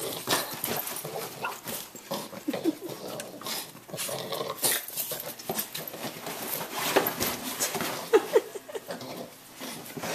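Several puppies play-wrestling, giving short whines, yips and growls amid scuffling and knocks.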